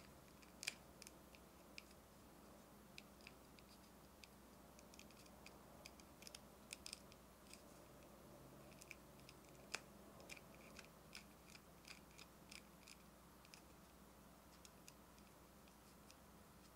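Scattered light plastic clicks and taps as fingers handle a small posable plastic shark capsule toy and work its jaw open. There are two sharper snaps, one just under a second in and one near ten seconds, over a faint hiss.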